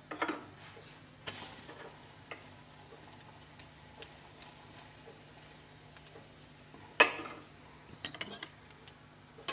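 Metal spoon scraping and spreading ghee over a paratha on a hot tawa, with a faint sizzle and a brief rush of hiss early on. A few light clinks, and one sharp clink about seven seconds in as the spoon goes back into the steel ghee bowl.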